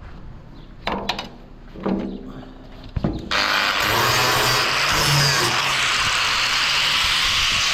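Stick-welding arc, struck about three seconds in after a sharp click, then crackling and hissing steadily. A few short, quieter sounds come before it.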